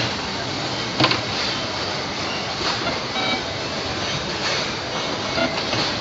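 Automatic wire-harness braided-sleeving threading machine running with a steady mechanical clatter, with one sharp click about a second in.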